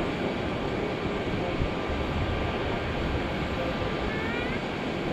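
Airbus A380 four-engine jet airliner taxiing, its engines giving a steady noise with a faint high whine.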